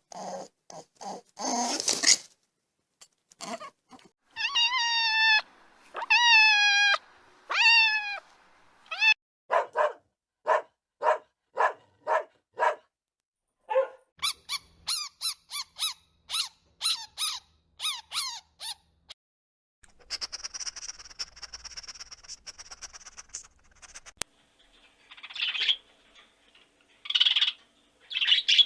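A series of animal calls of several kinds in turn: short calls, then a few long calls that fall slightly in pitch, a quick run of short calls, rapid high squeaks, a steady high hiss, and a few short high calls near the end.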